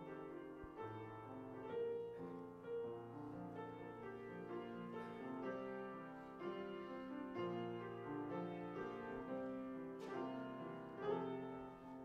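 Quiet piano music: a slow melody over held chords.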